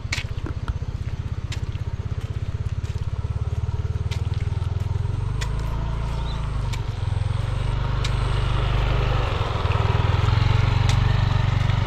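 A motor vehicle running along a road: a steady low engine hum with road noise that grows louder in the second half, and scattered sharp clicks and knocks.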